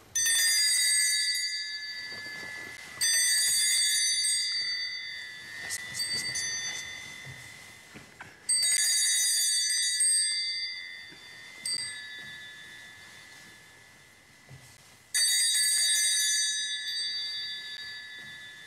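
A small altar bell struck four times at uneven intervals, each strike ringing out clearly and fading over a few seconds, with a fainter extra tap about two-thirds of the way through.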